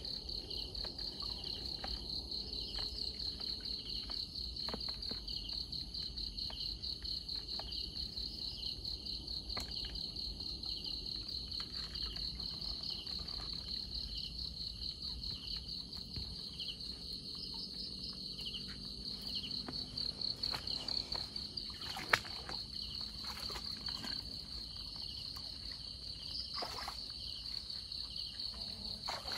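Night insects trilling steadily in a fast, pulsing chorus. Scattered light knocks and splashes come through as a fish trap is handled in shallow water, with one sharp knock about 22 seconds in.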